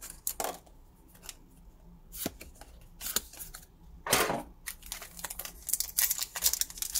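Handling of trading cards and a foil booster-pack wrapper: small clicks and rustles, a louder brief rustle about four seconds in, then dense crinkling from about five seconds on as the next Pokémon booster pack is picked up and torn open.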